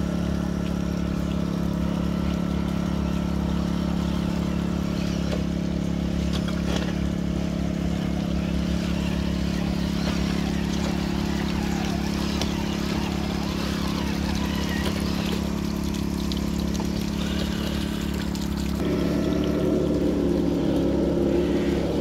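Water pouring from a small garden waterfall spout and splashing into a shallow pool, over the steady drone of a small portable petrol generator. Near the end a rougher, louder sound comes in.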